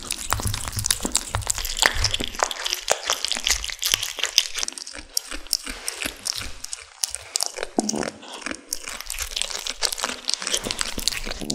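Kittens chewing and tearing at a raw duck leg close to the microphone: a dense, continuous run of crunching, clicking bites.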